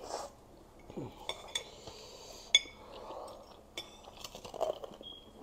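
Metal cutlery clinking against ceramic plates while eating: several sharp, ringing clinks, the loudest about two and a half seconds in.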